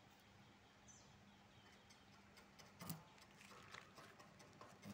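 Near silence: faint outdoor background with scattered light clicks and one short knock just before three seconds in.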